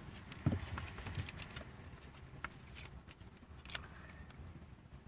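Scissors snipping through a foam draft-excluder strip near the start, followed by scattered light clicks and rustles as the strip is handled and pressed into place, over a low wind rumble on the microphone.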